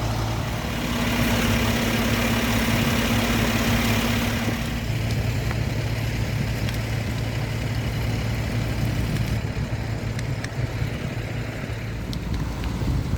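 A large vehicle engine running steadily at idle, a low even hum. From about one to five seconds in, a higher steady tone and a rushing hiss join it and then drop away.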